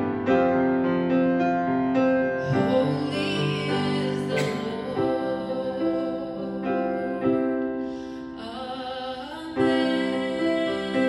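A woman singing solo while accompanying herself on a grand piano. The music goes softer about eight seconds in, then swells again near the end.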